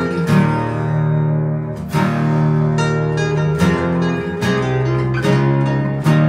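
Background music played on acoustic guitar, with notes and chords struck every second or so.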